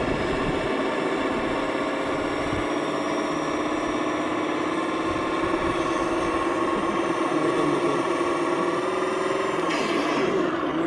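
A 1/10-scale RC crawler's electric motor and gear drivetrain whining steadily under load as it crawls up a steep dirt bank. The pitch creeps slightly higher, then drops away near the end.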